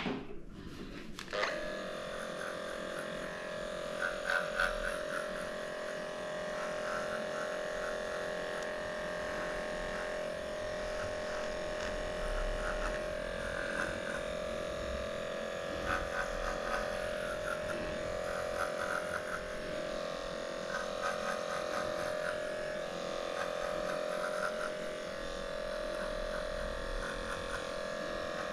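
Heiniger cordless pet clipper running with a steady electric hum while it trims the fur between a poodle's paw pads.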